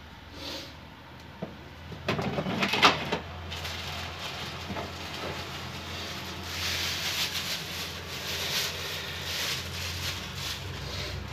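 Street cats growling and hissing at each other in a standoff: a short, loud growling yowl about two seconds in, then a run of hissing bursts in the second half.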